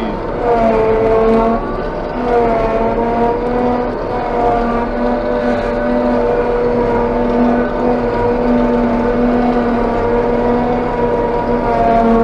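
Claas Jaguar 830 self-propelled forage harvester working under load, heard from inside its cab: the engine and chopper run as a loud, steady drone with a hum of several steady tones. The pitch sags slightly a couple of times in the first few seconds as the crop load changes.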